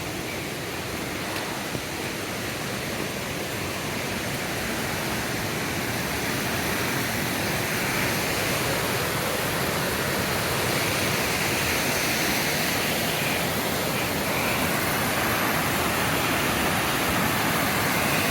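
Steady rushing of falling water from the Pistyll Rhaeadr waterfall, slowly growing a little louder.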